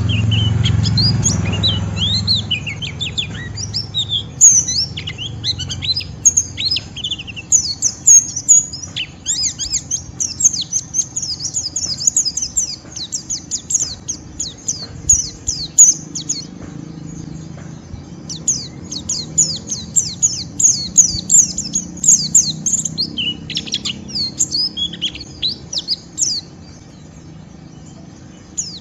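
White-eye (pleci) chattering in its rough, rapid 'ngeriwik' call, the excited chatter that provokes a rival to answer: dense runs of short, high chirps sweeping downward, broken by brief pauses around the middle and near the end. A low rumble sits under the first two seconds.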